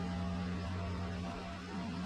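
John Deere 420 garden tractor's Onan twin-cylinder engine running steadily while the tractor drives over gravel, easing slightly near the end.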